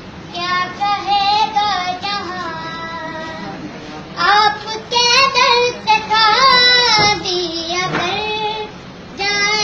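A young boy singing an Urdu naat solo in long, wavering phrases, pausing for breath about four seconds in and again near the end.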